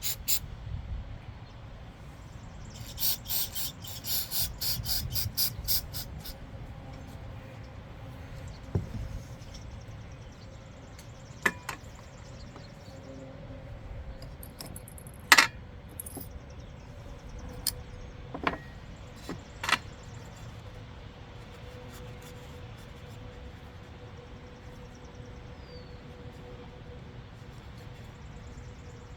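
Small metal parts and hand tools clicking and clinking during lawnmower carburetor work: a rapid run of ticking clicks a few seconds in, then a handful of separate sharp clinks, the loudest about halfway through. A faint steady hum comes in during the second half.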